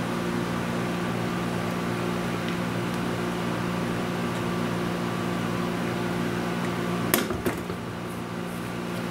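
Steady machine hum of a running appliance in a small room, with one sharp click about seven seconds in.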